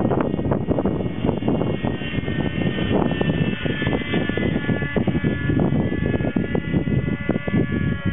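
Thunder Tiger Raptor 30 nitro RC helicopter flying at a distance: the high, fairly steady whine of its glow engine and rotor, over gusty wind rumble on the microphone.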